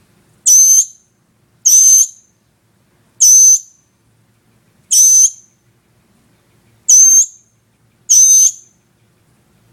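A lost fledgling bird calling: six loud, high, rasping calls, each about half a second long, repeated every one to two seconds.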